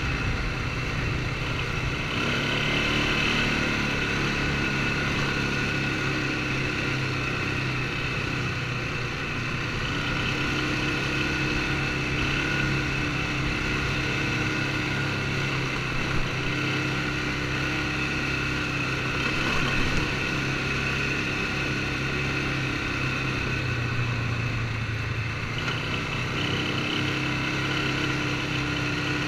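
Polaris ATV engine running steadily while the quad is ridden along a dirt track. Its pitch shifts slightly now and then as the throttle changes.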